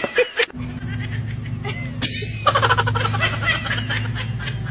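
A baby vocalizing in a run of short, wavering squeals about halfway through, over a steady low hum.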